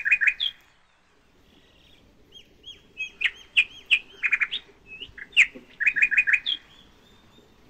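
Birds chirping: short, sharp chirps, often in quick runs of four or five notes, with a brief lull about a second in.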